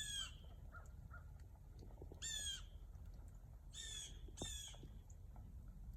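A bird calling outdoors: four short calls, the last two close together.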